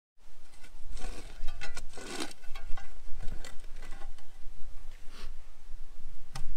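Shovel digging in soil: a string of short, irregular scrapes and cuts, the loudest about one and two seconds in, with a few sharp clicks.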